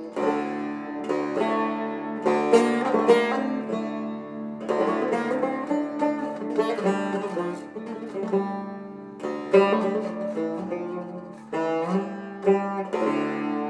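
Cümbüş tambur, a Turkish long-necked lute with a banjo-like metal-bowled body, played solo: plucked melody notes over low ringing strings, in phrases with short pauses between them.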